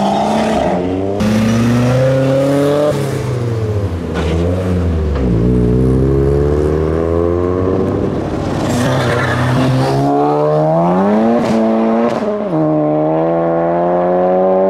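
Car engines accelerating hard away, revving up with the pitch climbing, then dropping back at each gear change, with several of these runs one after another.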